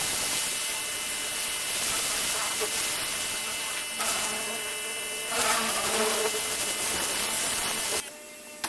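Pressure washer spraying: a steady loud hiss of water over the buzz of the machine. The sound shifts abruptly twice and drops much quieter near the end.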